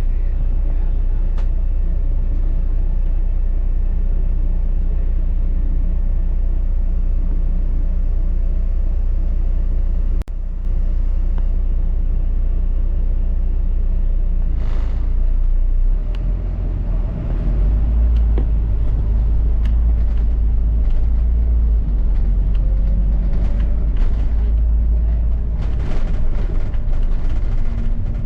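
Double-decker bus heard from on board: a steady low engine and road rumble that grows louder from about halfway, with a faint rising whine and scattered rattles and knocks toward the end.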